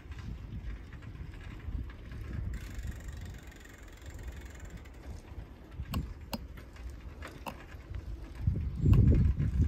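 Wind buffeting the microphone of a phone carried on a moving bicycle, a gusty low rumble that grows louder near the end, with a few sharp clicks past the middle.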